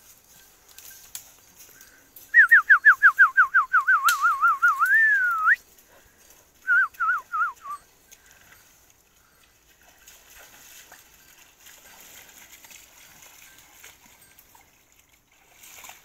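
A person whistling: a fast warbling trill of repeated falling notes for about three seconds that ends in a rising then falling note, followed about a second later by a shorter trill of the same kind.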